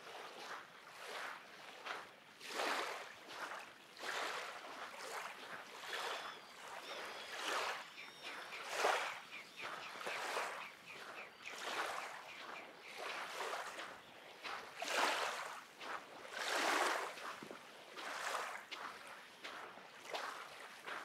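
Small lake waves lapping and washing onto a black volcanic-sand shore, a soft wash every second or two, with a few faint bird chirps.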